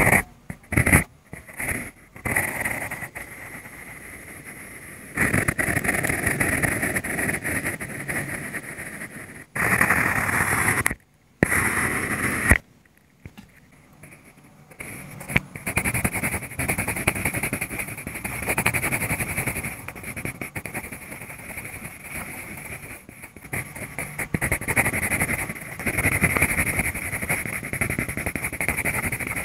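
Mechanical pencil scratching on drawing paper, in uneven stretches of strokes that break off abruptly several times.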